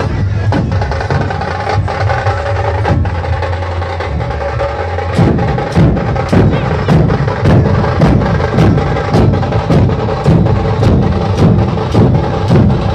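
A Maharashtrian dhol troupe, many large barrel dhol drums beaten together with sticks. For about five seconds they play a dense, continuous roll, then settle into a steady, hard-struck beat of sharp, evenly spaced strokes.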